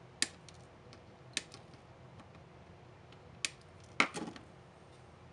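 Flush cutters snipping the soldered capacitor leads off a small circuit board: four sharp clicks spread over a few seconds, the loudest about four seconds in with a brief clatter after it.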